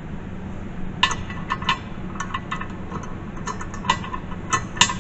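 Irregular small metal clicks and clinks of steel nuts and bolts being hand-threaded and handled on a steel plow mount plate, starting about a second in, over a steady low hum.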